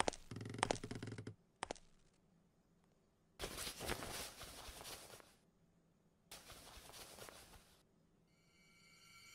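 A couple of light knocks, then two spells of fabric rustling as a dark coat hanging on a wooden coat rack is handled. Music with held tones fades in near the end, growing louder.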